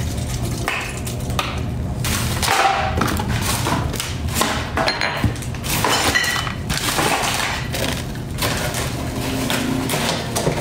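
Dishes and kitchenware knocking and clattering as they are handled and set down: a string of irregular thuds and clinks.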